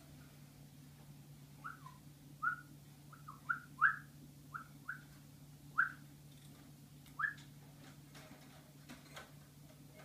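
Java sparrow giving a run of about ten short chirping call notes, each a quick rising or falling chirp, spread over several seconds. Faint clicks follow near the end.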